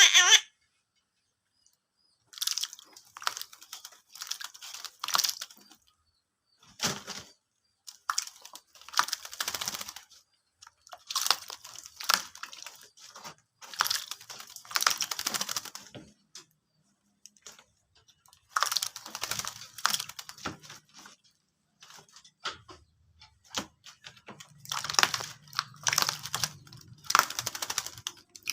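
A Javan myna bathing: repeated bursts of splashing and wing-fluttering, each lasting a second or more, with short pauses between. A low steady hum comes in near the end.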